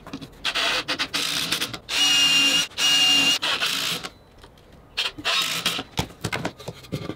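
Cordless drill/driver running in short bursts into the edge of plywood, working a pilot hole and screws for a glued-and-screwed butt joint. Two steady whines come about two and three seconds in, and light knocks of handling follow near the end.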